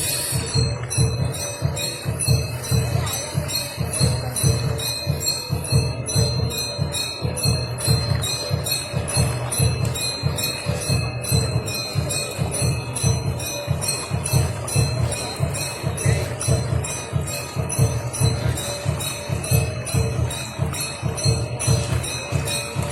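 Background music with a steady drum beat and jingling percussion, high metallic strikes falling in an even rhythm.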